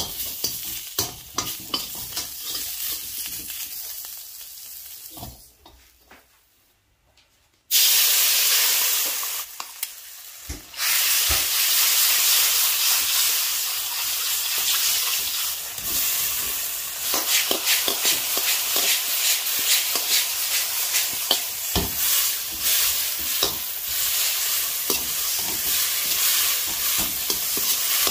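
A metal spatula stirs shrimp in a wok with light clinks and scrapes, then fades to near silence. About eight seconds in, a loud sizzle starts suddenly as sauce bubbles in the hot wok. It carries on as steady frying, with frequent clicks and scrapes of the metal ladle and spatula against the wok.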